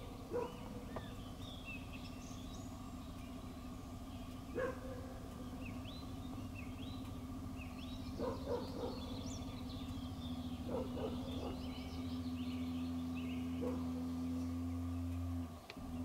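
Songbirds singing, with many short rising chirps and a short lower call repeated now and then, often in pairs. Under it runs a steady low hum that grows louder in the second half and cuts off suddenly shortly before the end.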